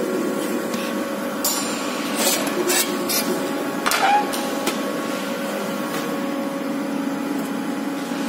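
An electric scooter's deck cover plate being lifted off and handled, giving a handful of knocks and clicks in the first half, over a steady machine hum.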